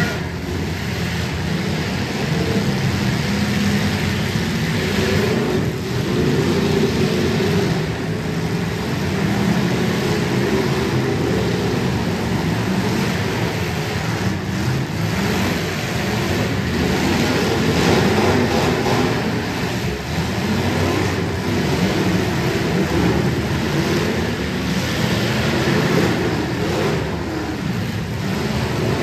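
Several demolition derby cars' engines revving together, their pitches rising and falling over one another, with a few bangs as the cars ram each other.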